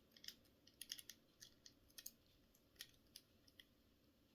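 Faint, irregular metallic clicks and scrapes of a pick being worked inside the lock of TCH 840 handcuffs.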